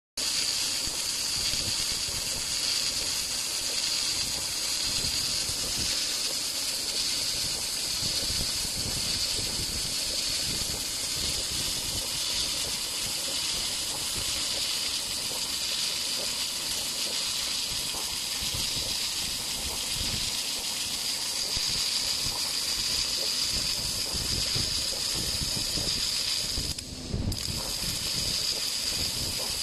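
BOPP adhesive tape slitting and rewinding machine running at speed: a steady loud hiss with a strong high edge from the film and tape winding through, dipping briefly near the end.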